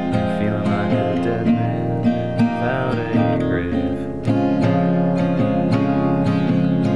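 Music led by strummed acoustic guitar, steady chords with a regular strumming rhythm.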